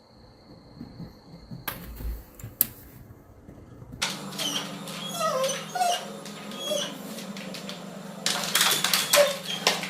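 A dog whimpering in short, high, gliding calls over a low steady hum, after a few seconds of near quiet with a couple of clicks.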